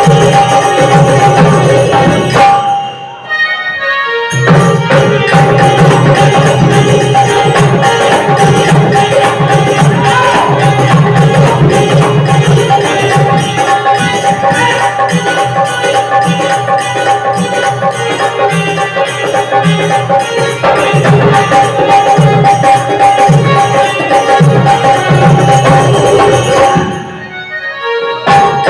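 Traditional Indian folk music: hand drums keeping a rhythm with jingling percussion over a steady held melodic tone. The music drops away briefly about three seconds in and again near the end.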